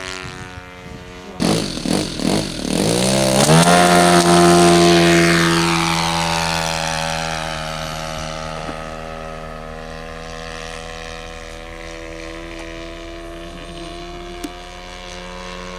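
Radio-controlled model airplane engine in flight. About a second and a half in it revs up quickly to a steady high-throttle note, which is loudest a few seconds in as the plane passes and then slowly fades as it flies away.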